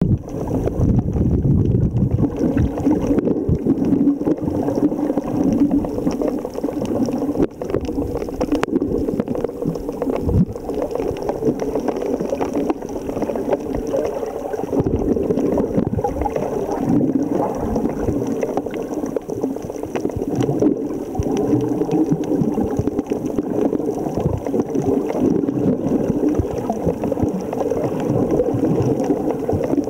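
Underwater sound picked up by a submerged camera: a steady, muffled rush and gurgle of moving water, with scattered sharp clicks throughout.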